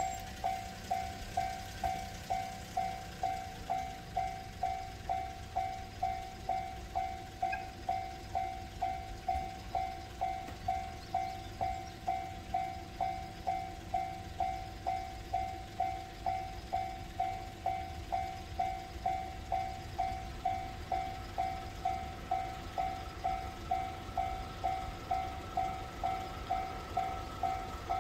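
Railway level-crossing alarm ringing, an electronic bell repeating evenly at about two strikes a second, the warning that a train is approaching.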